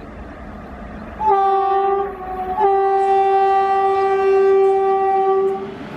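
WAP-4 electric locomotive sounding its horn as it approaches: a short blast about a second in, then a long blast of about three seconds, over the rumble of the oncoming train.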